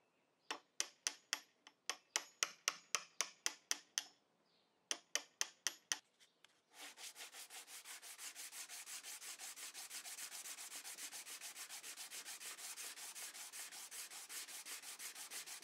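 A chisel pares glued-in walnut plugs flush with the wood: two runs of short, crisp scraping strokes, about four a second. From about seven seconds in, sandpaper on a hand-held sanding pad rubs the wood fast and evenly, about eight or nine strokes a second.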